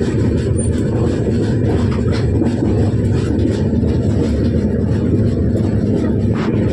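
Train running on the rails: a steady, loud low rumble with a few faint clicks.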